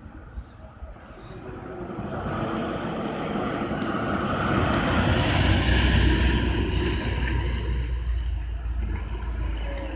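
Diesel engine of a Tata bus growing louder as it comes round the bend and passes close by about six seconds in, with a deep rumble, then easing off as it moves away.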